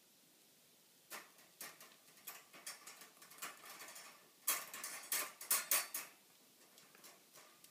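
Metal clicking and rattling at a wire dog crate, as a dog outside it noses and paws at the crate's door. It starts about a second in, as a string of sharp clicks, grows into the loudest rattling near the middle, then thins out again near the end.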